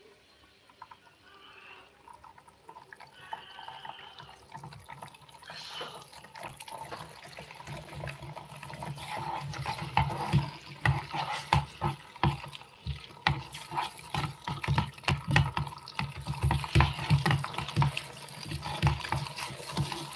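An egg and onions frying in oil in a mini electric cooker pot, the sizzling growing steadily louder. From about ten seconds in, a steel spoon scrapes and taps quickly against the pot as the egg is scrambled.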